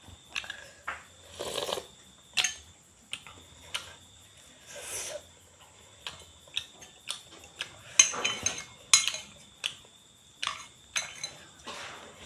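Kitchen utensils and dishes knocking, clinking and scraping at irregular intervals, with a few short scrapes among the sharp knocks.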